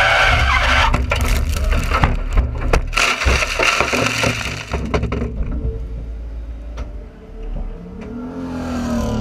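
Toyota Starlet race car rolling over after digging into soft, waterlogged grass: its four-cylinder engine running, then a run of crunching, banging impacts of the body hitting the ground for about four seconds, after which the noise dies away as the car comes to rest.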